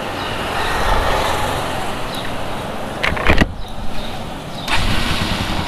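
Street traffic noise. A few knocks about three seconds in come from handling, and a low rumble comes up near the end.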